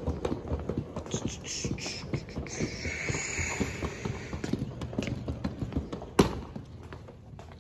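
Wheels of a hard-shell rolling suitcase clattering over the joints of a tiled floor as it is pulled along: a quick, uneven run of clicks, with one louder knock about six seconds in.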